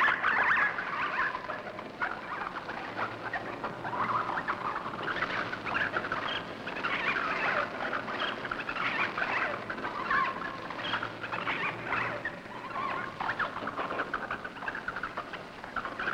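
A swarm of cave bats squeaking and chittering, a dense, continuous high-pitched twittering.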